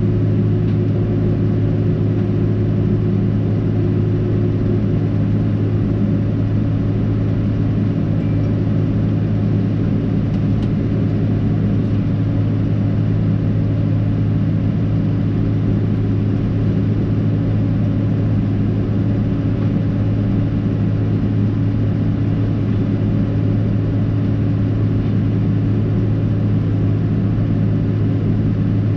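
Tractor engine running steadily at working speed, driving a Teagle Tomahawk 8500 bale processor as it blows straw bedding, heard from inside the cab as a loud, even hum.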